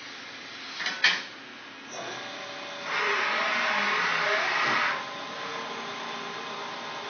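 Machinery in a shop: a sharp click, then a steady hum that swells into a louder whirring rush for about two seconds before settling back to a steady hum, as of a Cincinnati Sabre 1000 CNC vertical mill's motors and fans running up.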